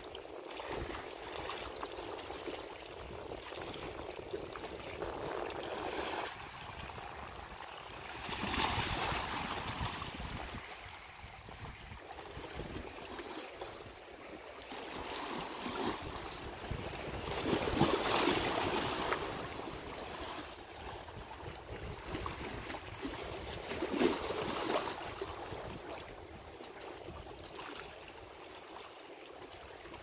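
Small sea waves washing and lapping on the shore in a steady wash, swelling louder three times, about a third of the way in, near the middle and again a little later.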